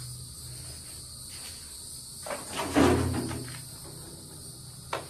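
Steady chorus of insects with a low hum underneath; about halfway through comes a brief, louder scraping sound, and a sharp click near the end.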